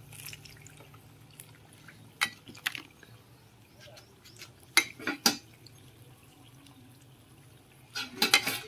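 A spoon clinking and tapping against a stainless-steel bowl while batter is spooned onto a spiral-cut potato: two clicks about two seconds in, three more around five seconds, and a quick cluster of taps near the end.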